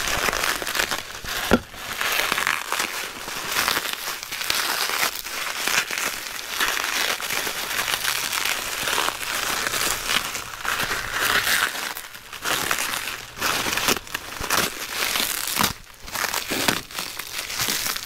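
Plastic packaging and bubble wrap crinkling and rustling as it is handled and pulled apart while a box is unpacked, with many sharp crackles and a few short pauses.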